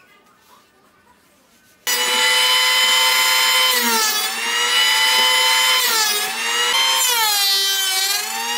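Electric hand planer, mounted upside down as a jointer, switched on about two seconds in and running with a loud whine. Its pitch drops and recovers several times as the timber is pushed across the cutter and loads the motor.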